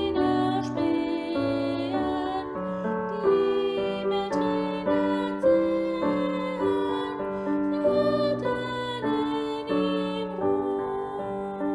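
Slow, gentle piano music: a calm hymn-like piece of held chords and a simple melody.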